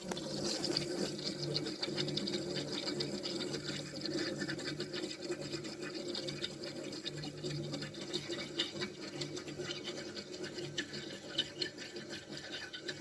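Window air conditioner running up close: a steady compressor hum under a crackling hiss of refrigerant flowing through the coils.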